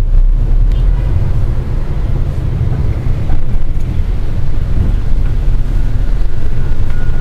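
Steady low rumble of a bus driving in traffic: engine and road noise heard from inside the bus.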